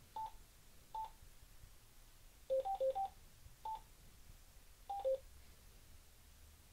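Key beeps from a TYT TH-8600 dual-band mobile radio as its buttons are pressed to step through the power-level menu: about nine short beeps at a few different pitches, some single and some in quick runs of two to four, each confirming a key press.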